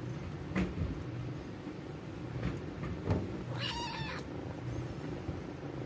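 A young kitten gives one short, high meow about two-thirds of the way through.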